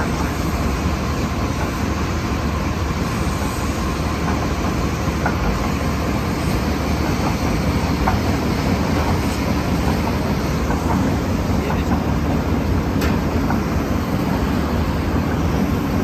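Heavy machinery of a water well drilling rig running: a steady low rumble, with scattered light metallic clicks.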